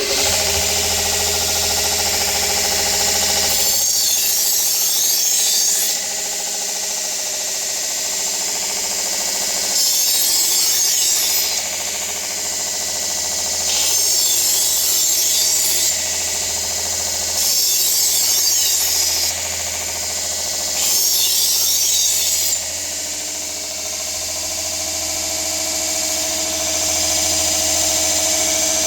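Vevor 1x30 belt grinder with a 1,000-grit belt, switched on and running steadily. Five times, a kitchen knife is ground against the moving belt, each pass a louder hiss lasting one and a half to two seconds, at 1,000 grit one of the finer stages of sharpening.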